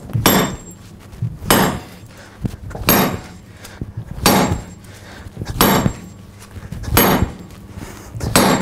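Hammer blows on a drift driving a hole through a glowing-hot steel striking-anvil plate: seven sharp metallic strikes, one about every 1.4 seconds, each with a short ring.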